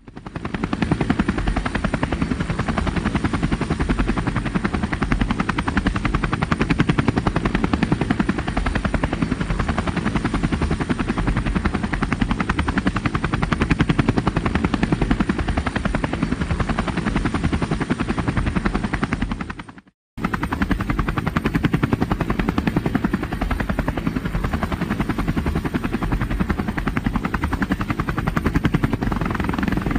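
Helicopter rotor blades chopping steadily in a fast, even rhythm. The sound cuts out for a moment about two-thirds of the way through, then resumes.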